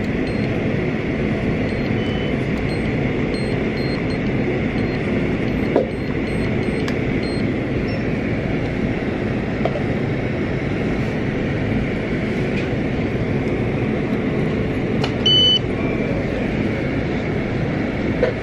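Steady background noise of a coffee shop counter, a continuous machine and room hum without clear voices. A short electronic beep sounds about fifteen seconds in.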